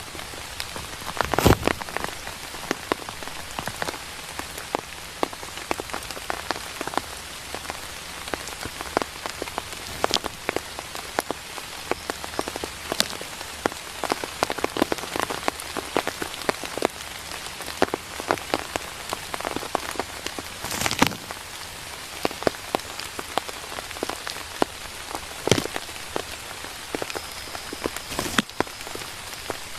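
Steady rain falling, with many close raindrops tapping sharply one by one. Two heavier thumps, one about a second and a half in and one about twenty seconds in.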